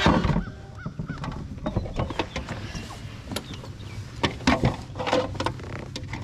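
Scattered knocks and clicks of handling on a kayak deck, as a bass is held and laid on a plastic fish-measuring board.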